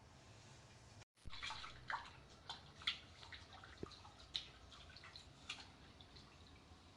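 Faint, irregular small splashes and drips of water, a quick run of them starting just after a second in and thinning out toward the end.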